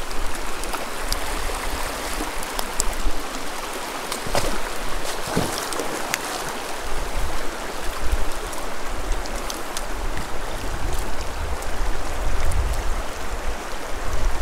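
Small mountain creek flowing steadily, an even rush of water, with a low rumble underneath that comes and goes. A few brief clicks about four to six seconds in.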